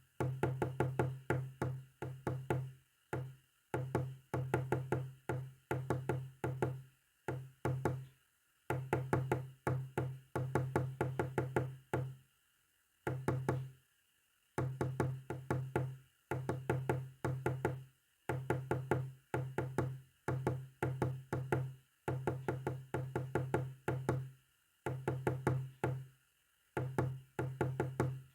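Morse code signal: a low, buzzy tone keyed on and off in short and longer elements, bunched into groups with pauses of about a second between them.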